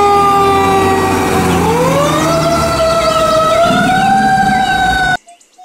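Fire truck siren sounding as the truck drives past. Its pitch sinks slowly, climbs about a second and a half in and then holds high, over the low rumble of the truck. The sound cuts off suddenly about five seconds in.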